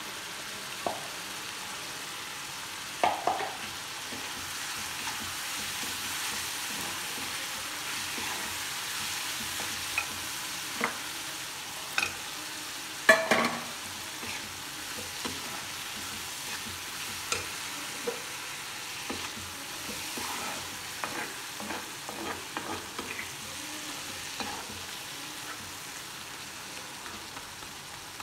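Tomato-onion gravy with dried fish sizzling steadily in a kadai, stirred with a spatula that knocks and scrapes against the pan now and then. The loudest knock comes about halfway through, and there is a quick run of scrapes later on.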